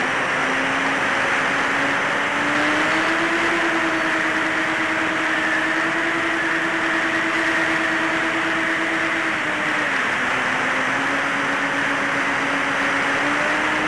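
Electric motors and propellers of a HEEWING T2 Cruza VTOL RC plane in forward flight, heard from the onboard camera as a steady drone over heavy wind rush. The pitch rises about three seconds in as the throttle goes up, drops about ten seconds in, and climbs again near the end.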